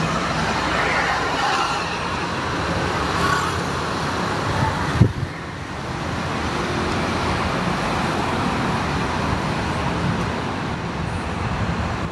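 Steady street traffic noise of passing vehicles, with a single short knock about five seconds in.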